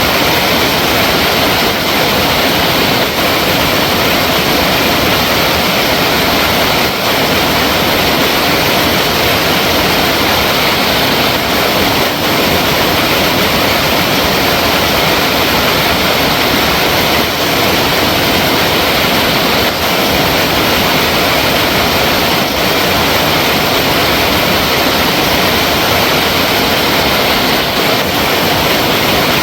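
Flowing water, a loud, steady rush with no let-up.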